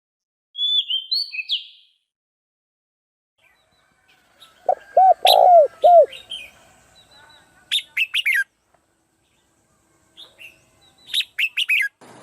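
Songbirds calling in turn: quick high chirping phrases about half a second in, around eight seconds and again near the end, and a run of four or five lower, arching notes from a second bird a little before the middle, with near silence between the calls.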